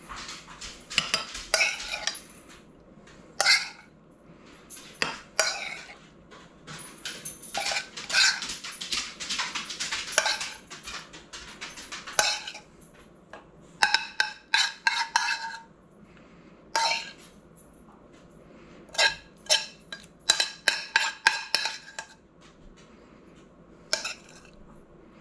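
A metal spoon scraping and clinking against a stainless-steel skillet and a plate as rigatoni in meat sauce is spooned out, in irregular runs of clinks and scrapes with short pauses between them and a longer stretch of steady scraping about a third of the way in.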